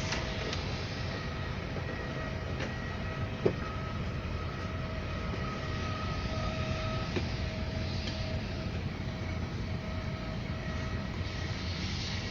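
Steady rush of air and hum inside an Airbus A330 cabin, with a faint whine that comes and goes, and a single click about three and a half seconds in.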